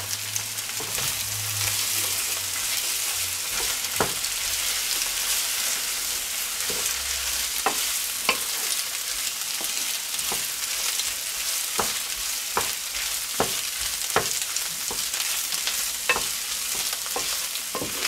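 Fried potatoes, bacon and eggs sizzling in a frying pan while a wooden spatula stirs and scrapes through them, with irregular sharp knocks of the spatula against the pan.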